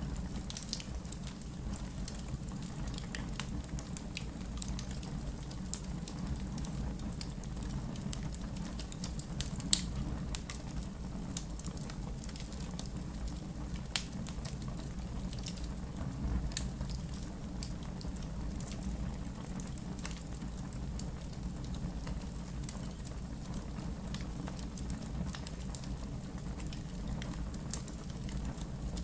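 Wood fire crackling in a fireplace: a low steady rumble of flames with scattered sharp crackles and pops, one louder pop about ten seconds in.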